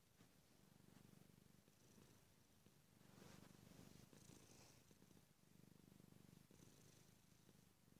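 Domestic cat purring faintly, a low rumble that swells and fades about once every two seconds with its breathing.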